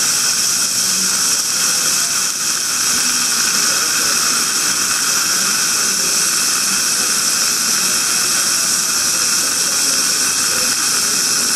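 Steady, unbroken hiss of dental operatory equipment, such as high-volume suction or air spray, running during laser gum surgery.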